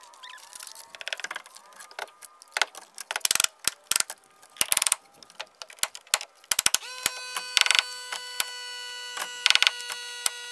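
Pneumatic nail gun firing nails into a wooden fascia board: several sharp shots a second or more apart, with lighter knocks and clicks between. About seven seconds in, a small 5-gallon Hitachi air compressor starts up and runs with a steady whine as it refills with air.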